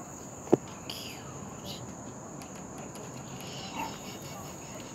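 Steady, high-pitched drone of insects in the yard, with one sharp knock about half a second in.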